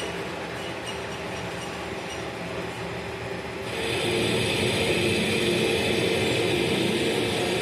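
CNC lathe with a GSK control running through a roughing cut, a steady machine noise. About four seconds in it grows louder and more high-pitched.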